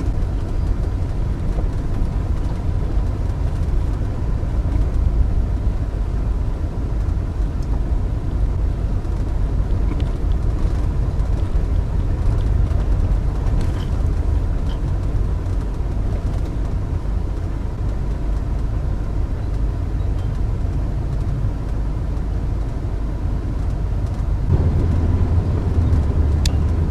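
Road noise inside a moving car driving over a rough, bumpy dirt road: a steady low rumble that grows louder near the end. No rattle comes from the freshly repaired door, which the driver says stays silent despite the heavy jolting.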